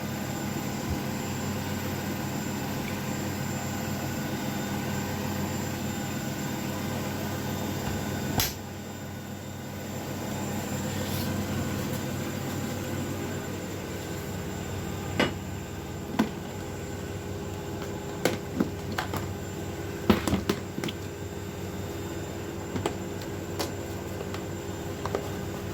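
Bosch Maxx WFL 248Y front-loading washing machine running, a steady mechanical hum. A sharp click comes about eight seconds in and the sound drops briefly. Scattered clicks and knocks follow in the second half.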